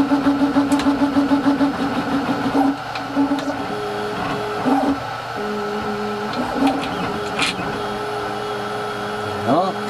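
Small electric screwdriver whirring in stop-and-start runs as it backs out the screws holding the motor unit of a mitre saw, pulsing for the first few seconds, then running lower and steadier.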